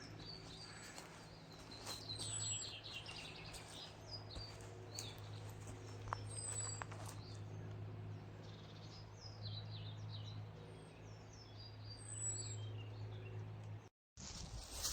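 Several small songbirds singing in woodland: quick trills and chirps with thin high whistles, over a steady low hum. The sound drops out briefly near the end.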